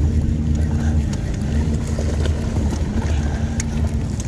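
A boat motor running steadily: a low drone with a held tone that dips briefly and comes back a couple of times, and a few faint clicks over it.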